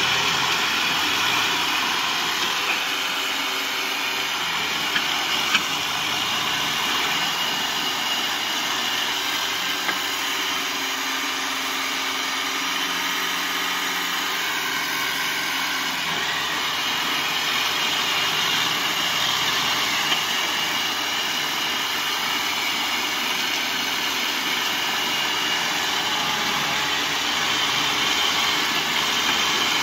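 Kubota M6040SU tractor's diesel engine running steadily, with a few brief knocks.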